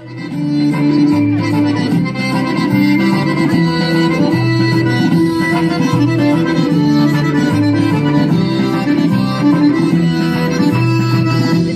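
Accordion-led traditional-style music playing, with a bass line moving under the melody.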